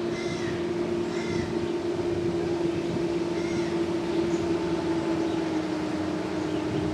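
A boat motor drones steadily, its pitch sinking slightly over the seconds, while a bird gives a few short arched calls.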